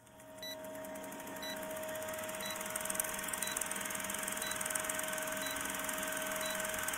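Vintage film-countdown sound effect: an old film projector running with a steady hiss and clatter under a steady hum tone, and a short high tick once a second marking the count.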